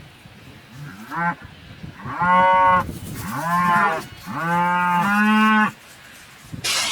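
Cattle mooing: a short call about a second in, then three longer moos in close succession, the last on a slightly higher note. A rush of noise sets in at the very end.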